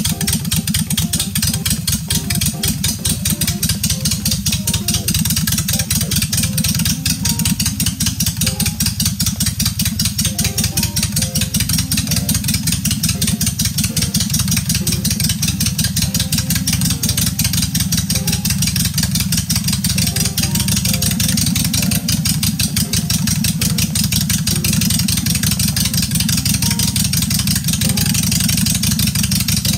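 Honda Shadow Ace V-twin motorcycle engine running steadily near idle. It is fed by a custom single carburetor whose new main and idle jets are being tuned.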